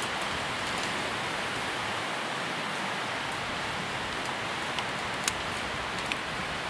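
Steady rain: an even hiss, with three sharp ticks of drops near the end, the middle one the loudest.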